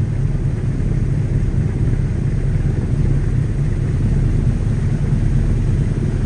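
Loud, steady, low rumbling noise with no distinct events.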